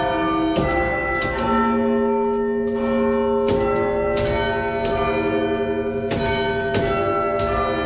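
Salisbury Cathedral clock's quarter-chime bells ringing, struck in turn by the running clock mechanism: about ten strikes, roughly one every second or less, each note ringing on and overlapping the next.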